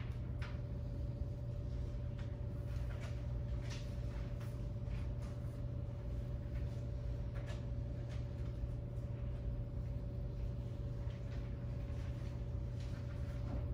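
Room tone: a steady low hum with a faint steady higher tone above it, and scattered faint small clicks and rustles.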